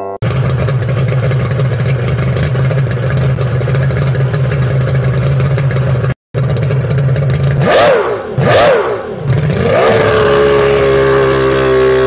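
Small two-stroke petrol engine of an RC powerboat running at a low, rough, steady speed. After a short break about six seconds in, it is revved up and down twice and then held at high revs.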